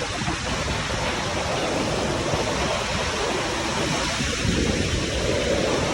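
Storm noise: wind and rushing water making a steady, dense noise with a heavy low rumble.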